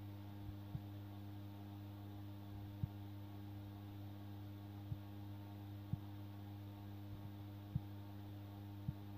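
Steady low electrical mains hum, with about seven faint scattered clicks as a soldering iron tip and tweezers touch a mobile phone circuit board while a speaker wire is soldered on.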